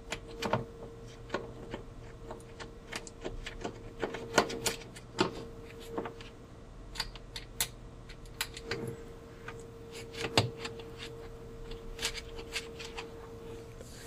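Small mounting screws being started by hand into a washing machine timer's metal mounting plate: light, irregular metallic clicks and taps of fingers, screws and plate, over a faint steady hum.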